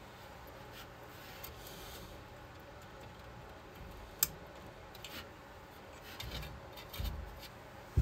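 Faint rubbing and handling of the igniter's wiring and plug inside a gas furnace cabinet, with one sharp click about four seconds in and a few soft knocks near the end.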